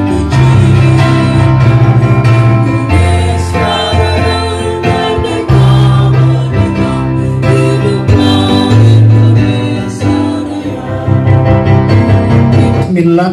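Music of long held keyboard chords with singing.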